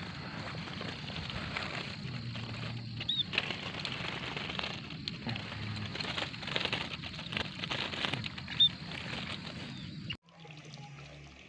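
Small birds, munias, fluttering and scrabbling with a busy pattering rustle, with two short high chirps. Music takes over near the end.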